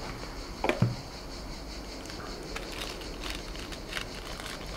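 Faint crinkling and light ticks of thin plastic packaging and small parts being handled on a desk. There is a brief vocal sound under a second in.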